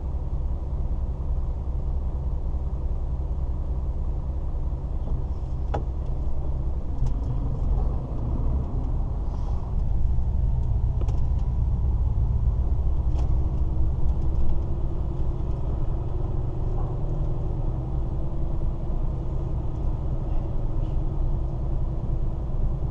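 DAF lorry's diesel engine running, heard from the cab: a steady low rumble that grows a little louder about ten seconds in as the truck moves off and drives on.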